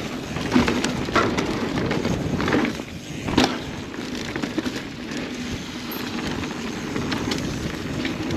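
Mountain bike rolling fast down a dirt trail: steady tyre and wind rumble, with sharp clattering knocks from the chain and frame over bumps and jumps.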